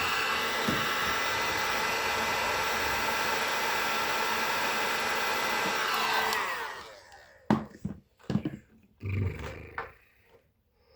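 Heat gun blowing steadily, switched off about six seconds in, its fan winding down in pitch. A few sharp knocks and handling noises follow.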